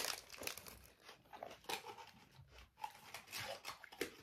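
Closed-mouth chewing of a crunchy bear-shaped biscuit with strawberry filling: faint, irregular small crunches, the loudest right at the start.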